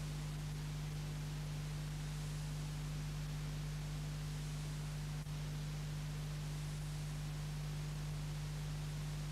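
Steady hiss with a strong low hum and nothing else, with a brief dropout about five seconds in: the empty sound track of a transferred silent black-and-white film.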